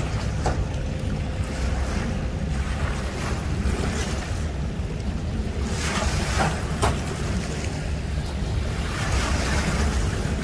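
Water churned up by a pontoon boat's outboard propeller washing and splashing onto the concrete boat ramp, with wind rumbling on the microphone. The splashing is strongest about six seconds in.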